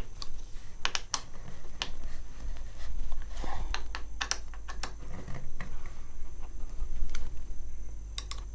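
Irregular small metallic clicks and ticks as a 6 mm T-handle Allen wrench is fitted to and turned in the lever clamp bolts on a motorcycle handlebar, snugging them up, over a steady low hum.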